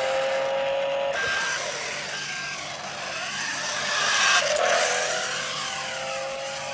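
Toy RC tank's electric drive motors and gearboxes whining as it drives, the pitch rising and falling with changes of speed.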